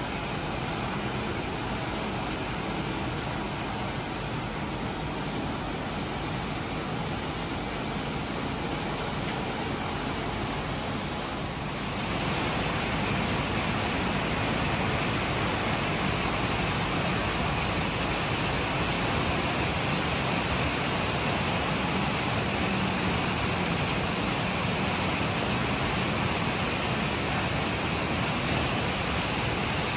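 Steady rain falling as a dense, even hiss. It gets a little louder about twelve seconds in.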